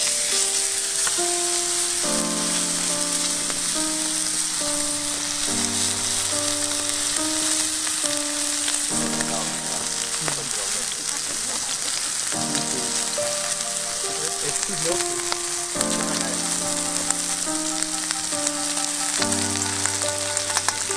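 Food sizzling and frying in a hot pan, a steady dense hiss, under background music of slow sustained chords.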